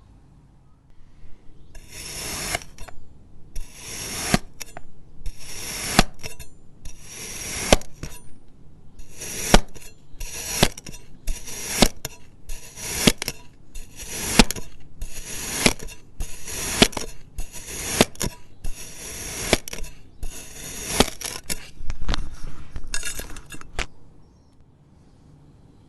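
A knife or blade slicing through kinetic sand in a steady run of about seventeen cuts, roughly one a second. Each cut is a short grainy rustle that ends in a sharp tap as the blade meets the tray. The cuts stop a couple of seconds before the end.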